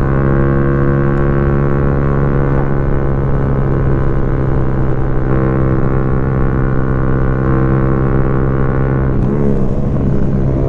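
Motorcycle engine running steadily at cruising speed, heard from on board. Its pitch holds even, wavering briefly near the end.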